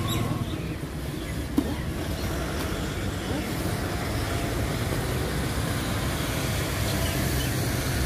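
Road traffic: steady vehicle noise with a low rumble, and one sharp tap about a second and a half in.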